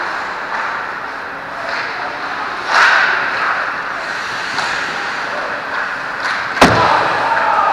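Ice hockey play close to the goal: skates scraping the ice, with a louder scrape about three seconds in and a single sharp crack of an impact near the end.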